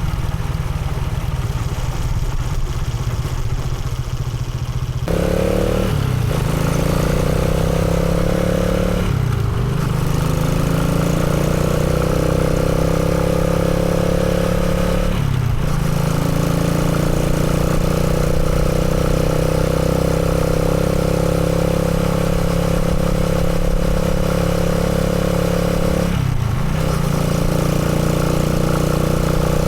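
Motorcycle engine running under steady throttle. Its note steps up about five seconds in, then drops and recovers briefly three times, like gear changes.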